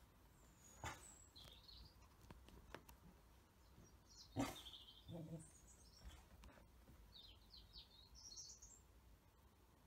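Near silence with faint bird chirps several times over, a single sharp knock about four seconds in, and a brief low sound just after it.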